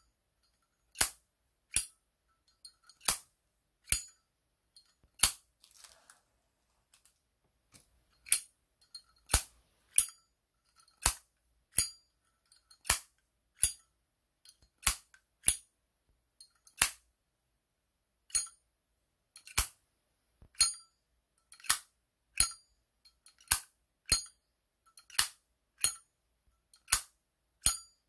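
Zippo 204 solid brass lighter's hinged lid being flipped open and snapped shut again and again: a long series of sharp metallic clicks, about one a second, each with a brief ring.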